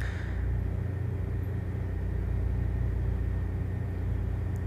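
A steady low machine hum with a deep drone.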